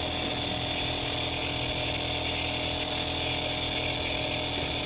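Compressor nebulizer running with a steady motor buzz and air hiss, pushing medicated mist through a child's face mask.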